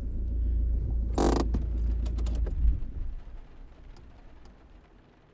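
Car engine idling with a low rumble, then switched off about two and a half seconds in. A short hiss comes about a second in, and faint clicks follow once the engine stops.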